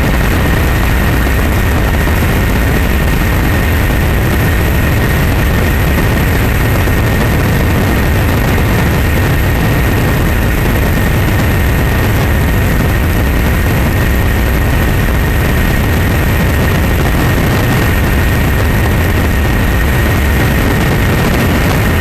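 Loud, steady engine drone with a deep rumble and a thin constant whine above it, unchanging throughout.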